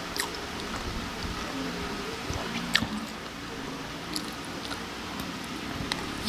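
Close-miked chewing of a pork adobo and scrambled egg meal: soft, wet mouth sounds with a few sharp clicks, the loudest about halfway through.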